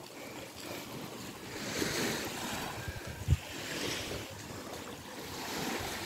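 Small waves lapping and washing up on a sandy shore, swelling in washes about two seconds apart, with wind on the microphone. A short low thump comes a little past halfway.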